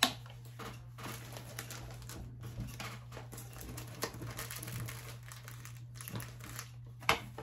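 Packaging crinkling and rustling as craft supplies are handled, with a sharp tap right at the start and another near the end, over a low steady hum.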